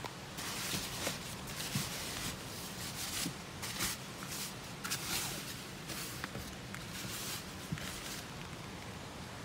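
Wind-driven squall rain beating on a car's windows and roof, heard from inside the car: a steady hiss that surges in gusts every second or so, with scattered ticks of drops.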